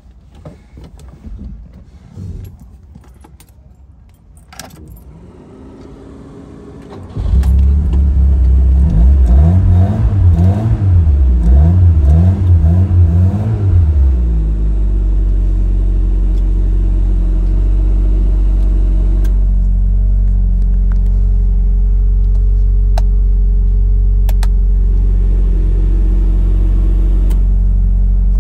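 Keys jangling and clicking at the ignition, then about seven seconds in the 1979 Fiat 124 Spider's twin-cam four-cylinder engine starts from cold. It is revved up and down several times, then settles to a steady idle.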